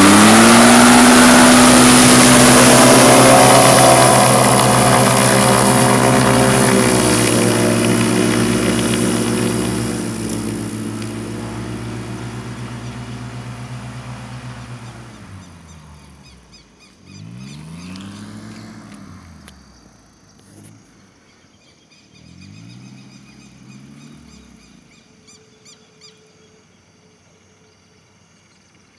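Ultralight trike's engine at full power for the takeoff run, then fading steadily over about ten seconds as the aircraft moves away. Later it comes back faintly twice, each time rising and falling in pitch.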